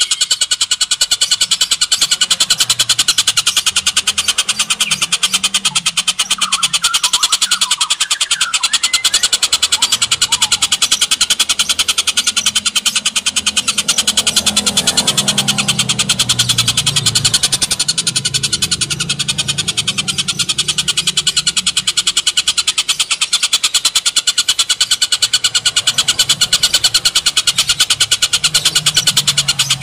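Oriental dollarbird giving its harsh call as a long, unbroken run of rapid, evenly spaced notes. A low rumble comes and goes underneath.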